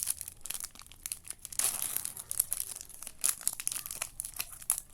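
Plastic booster pack wrapper crinkling and tearing as it is opened, a dense irregular crackle throughout.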